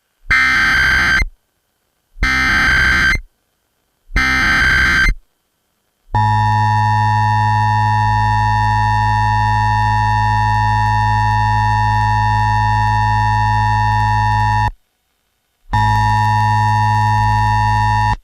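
Emergency Alert System test: three short bursts of SAME digital header tones about a second apart, then a steady electronic attention tone for about eight and a half seconds. After a brief break the tone sounds again for a couple of seconds.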